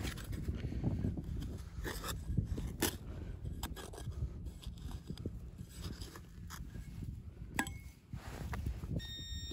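Metal hand digger scraping and knocking in soil and grass as a hole is dug out: a string of short, irregular scrapes and clicks. A high steady electronic tone comes in near the end.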